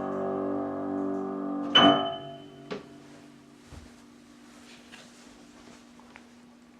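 Piano notes held and ringing, then one loud chord struck about two seconds in that dies away. A click follows, and after that only a faint steady hum with a few small ticks.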